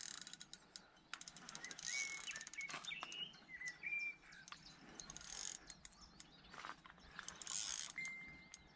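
Fishing reel clicking in quick bursts while a hooked carp is being played, with a bird chirping a few times.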